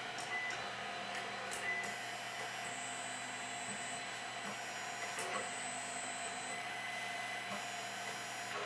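Printrbot Play 3D printer's stepper motors whining in short moves as the print head travels to probe the bed for auto-levelling, over a steady hum. The whines start and stop every second or so, with a few sharp clicks.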